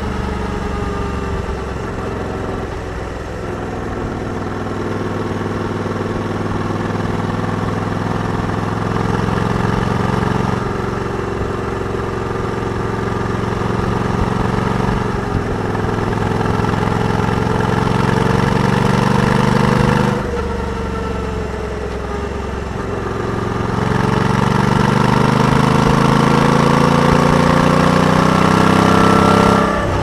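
Honda Africa Twin Adventure Sports' 1084 cc parallel-twin engine running on the road, its note rising and falling with the throttle. About twenty seconds in the note falls away sharply and sinks for a few seconds, then climbs steadily under acceleration until it drops again at the very end.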